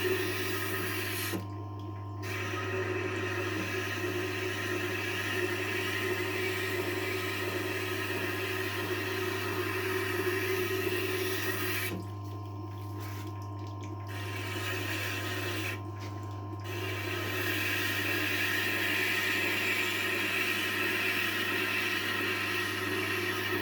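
Tormek T-8 wet grinder running with a steady motor hum while a kitchen knife is ground on its water-wetted stone, giving a continuous gritty hiss. The hiss breaks off briefly a few times, around 2 s, 12–14 s and 16 s in, as the blade leaves the stone, while the hum carries on.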